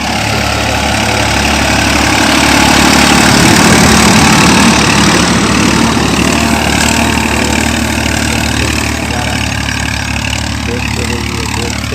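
Massey Ferguson 241 tractor's three-cylinder diesel engine running under load while pulling a cultivator; it grows louder to a peak about four seconds in, then slowly fades as it passes.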